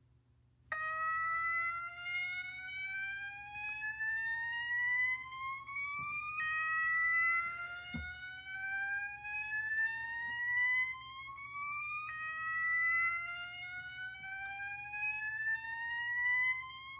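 System Sensor MASS fire alarm horn sounding its slow whoop tone, set by all three clips A, B and C. It starts about a second in and gives three slow rising whoops, each climbing steadily for about five and a half seconds and then dropping straight back to begin the next.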